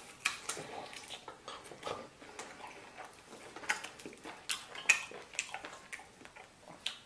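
Close-up eating sounds: chewing and gnawing meat off a lamb rib, with scattered sharp clicks and taps of chopsticks.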